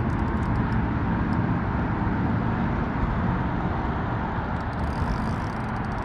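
A steady, fairly loud low rumbling noise with no clear tone or rhythm, swelling slightly about a second in.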